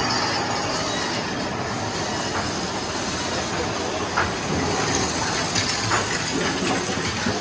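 Mine-train roller coaster cars running along the track: a steady rumble and rattle of wheels on rails, with a few sharp clacks about halfway through and later.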